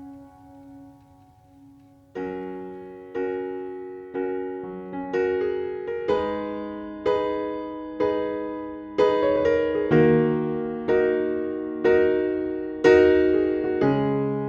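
Background music: a soft, fading held note, then, from about two seconds in, a piano playing slow chords about once a second, each chord dying away before the next.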